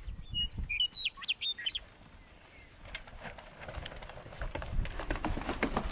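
Small birds chirping several short times in the first two seconds, over wind rumbling on the microphone that grows stronger in the last second or so.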